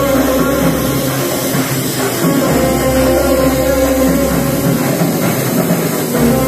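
Background music with a steady bass line that changes note every second or two.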